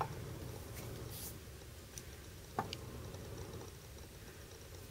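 A few faint, light clicks and ticks of small metal parts of a disassembled DPX HEST/F titanium framelock folding knife being handled and fitted by hand. The loudest click comes about two and a half seconds in.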